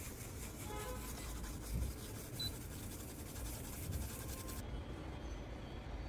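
Hot air rework gun blowing a steady hiss of air over a laptop logic board, cutting off abruptly about four and a half seconds in.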